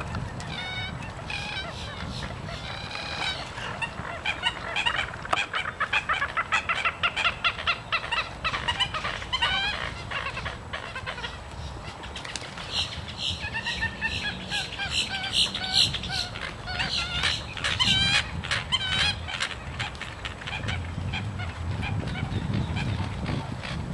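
American coots calling during a territorial fight: long runs of rapid, repeated clucking notes, several a second, that thin out in the last few seconds.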